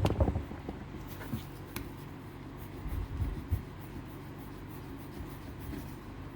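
A plastic pry tool scraping and rubbing as it works the rubber seal's lip up over the thin sheet-metal front cowl of a 1979 Fiat Spider 124. There is a cluster of clicks and knocks at the start, a few light ticks soon after, and low thumps about three seconds in, over a steady low hum.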